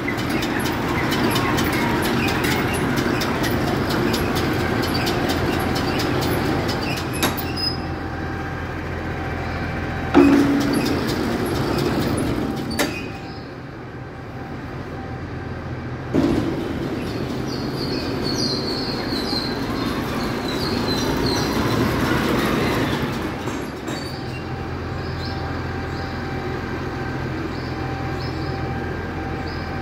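Vicon RV 1901 baler-wrapper combination running over the steady sound of the tractor driving it, with squealing that sounds like steel grinding on steel somewhere in the baler, a fault whose source is not yet found. A sharp knock comes about ten seconds in and another a few seconds later.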